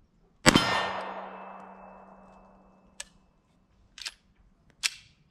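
A single 9mm pistol shot from a Polymer80 PF940V2 Glock 17-pattern frame about half a second in, with a long echo dying away over about two seconds. Three sharp clicks follow in the last two seconds, the pistol being handled after the spent case failed to eject (a stovepipe), which the shooter puts down to a recoil spring that is too stiff.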